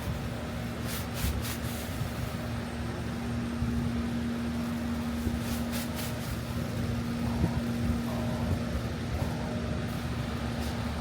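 City street traffic: a steady low rumble of vehicles with a constant low hum, and a few brief ticks.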